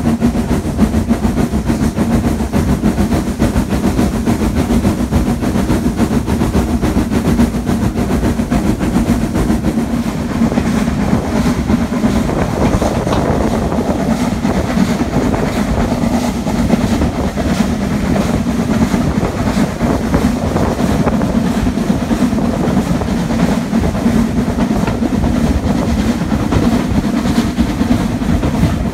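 Steam-hauled passenger train running at speed, heard from an open carriage window: a loud, steady noise of wheels on the rails and rushing air.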